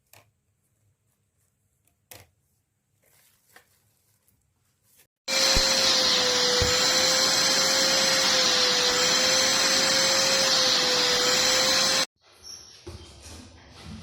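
Multipro VC 10-1 YS wet-and-dry vacuum cleaner switched on about five seconds in, running with a steady whine and hiss for about seven seconds, then switched off abruptly. A few faint clicks and knocks of handling come before it starts.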